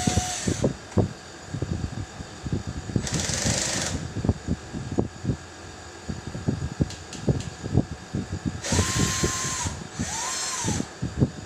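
Cordless electric drill-driver run in short bursts, its motor whining up to speed and back down: one burst dies away just after the start, one follows about three seconds in, and two come close together near the end. Short knocks and clatter from handling the unit's panel and parts come between the bursts.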